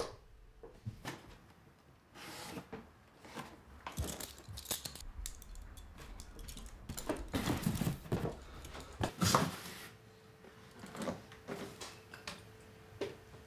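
Items being handled and dropped into cardboard boxes, with metal handcuffs jangling and cardboard rustling in irregular clinks and knocks.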